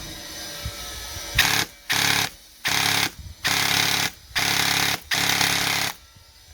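Upgraded airsoft electric gun (AEG) firing six short full-auto bursts, its motor and gearbox buzzing at a high rate of fire, set up at about 37 rounds per second.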